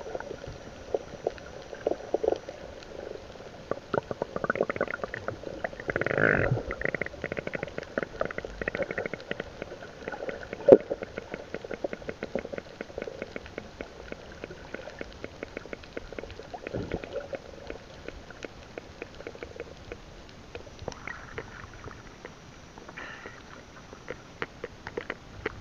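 Muffled underwater sound through a submerged camera: sloshing and gurgling water with a steady fine crackle of small clicks, a louder gurgling surge twice, and one sharp click about eleven seconds in.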